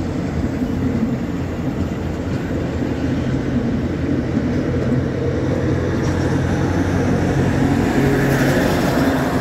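Diesel-electric multiple unit (DEMU) train departing and rolling past at close range as it gathers speed: a steady low running rumble that grows slightly louder.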